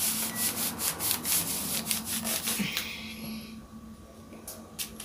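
Small handheld heat press scraping back and forth across a paper cover sheet over a shirt, several rubbing strokes a second, easing off about three seconds in, with a few more scrapes near the end.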